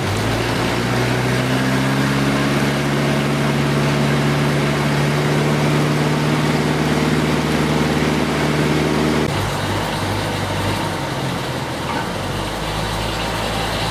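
River cruise boat's engine running under way, its pitch rising a little and then holding steady. About nine seconds in it drops back to a lower, quieter hum as the boat throttles down to come in to a landing.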